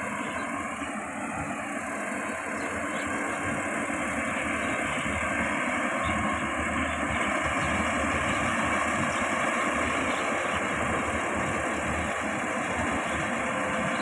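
Yanmar AG600A combine harvester's diesel engine and threshing gear running steadily as it cuts rice: a continuous mechanical drone with an even hiss over it.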